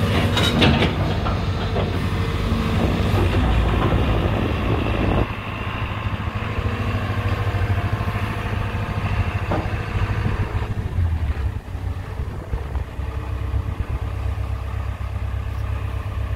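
Diesel engine of a JCB JS220X tracked excavator running steadily, with a few sharp knocks about half a second in. The sound drops noticeably in level about five seconds in and again about eleven seconds in.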